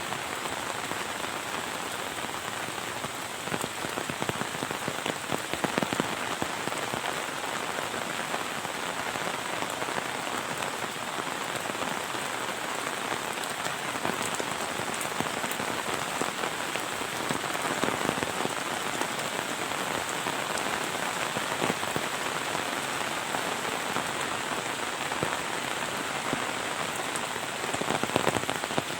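Heavy rain falling steadily, with many close drop impacts standing out over the wash of rain and a few louder spells of them.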